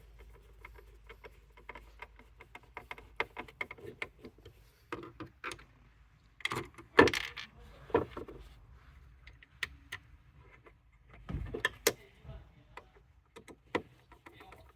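Hand tools and screws clicking and tapping while screws are being fitted: a run of small, quick, irregular clicks, then a few louder knocks about six to eight seconds in and again near twelve seconds.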